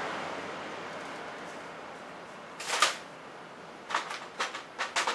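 A hiss that fades away, a short loud scrape about three seconds in, then a quick run of light clicks and knocks, like small parts or tools being handled.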